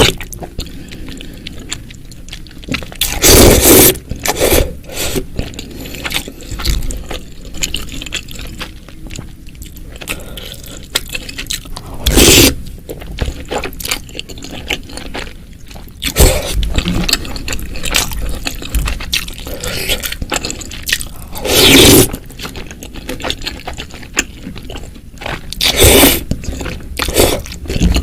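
Close-miked ASMR eating of a spicy meatball and seblak soup bowl: wet chewing and mouth clicks throughout, with four louder bursts spread several seconds apart.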